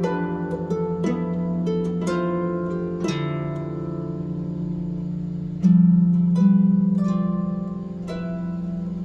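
Plucked string instrument played slowly: single notes ring out and fade over a sustained low note. A louder low pluck comes about five and a half seconds in.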